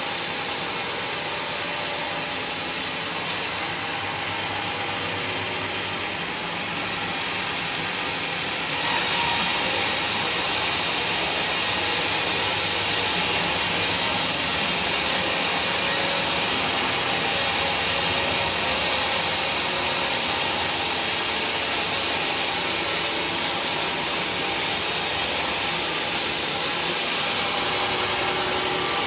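A machine running steadily with a hissing whir. About nine seconds in it gets louder and brighter, then holds steady.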